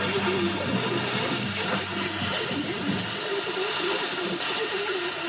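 Welding arc hissing steadily on the rusted steel of a mower deck, patching rotten metal; just before and after, the arc stops and restarts abruptly.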